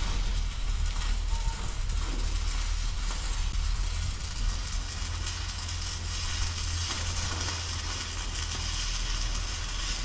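Electric arc welding of steel angle iron onto a gate: a continuous crackling sizzle over a steady low hum.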